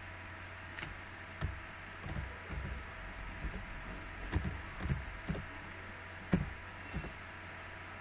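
Computer keyboard keystrokes: irregular soft taps while a search is typed, over a steady low electrical hum.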